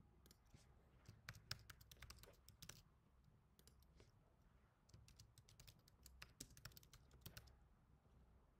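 Faint typing on a computer keyboard in several quick runs of key taps, stopping about a second before the end.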